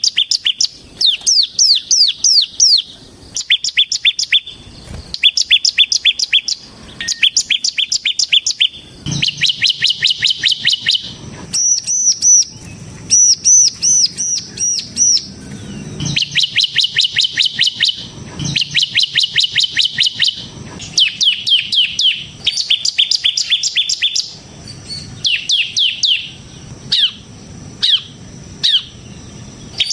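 Bar-winged prinia (ciblek semi) singing hard in the rapid 'ngebren' style: repeated bursts of fast, high, downward-sweeping notes, each run a second or two long. In the middle there is a stretch of higher, arched whistled notes.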